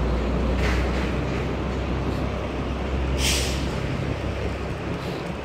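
Street traffic dominated by a city bus's low diesel engine rumble, with a short hiss like an air brake release about three seconds in; the rumble eases off soon after.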